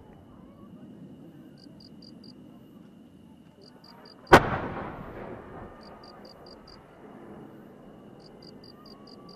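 A single sharp firework bang about four seconds in, echoing away over a second or so, as a firework shell goes up. Crickets chirp in short quick trills throughout.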